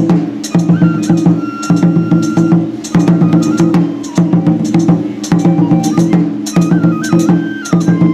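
Traditional Japanese festival music accompanying a shrine dance: a flute playing a stepping melody over sharp, steady percussion strikes and a low pulsing drone.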